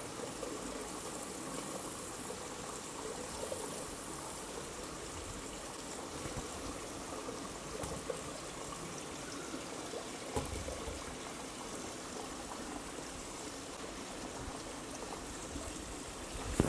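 Steady rush of running water, with a few faint knocks.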